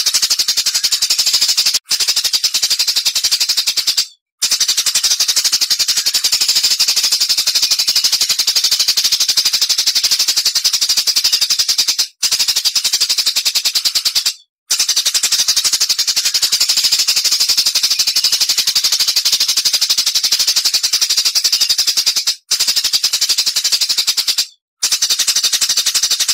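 Recorded songbird chattering in a fast, continuous rapid-fire string of high chirps, a "tembakan" (shooting) song used as a master track to teach competition birds. It breaks off into short silences every few seconds.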